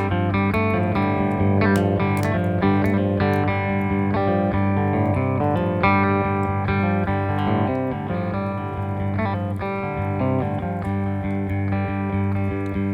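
Plucked guitar playing a slow, repetitive desert-blues instrumental passage, with a run of picked notes over a steady low drone.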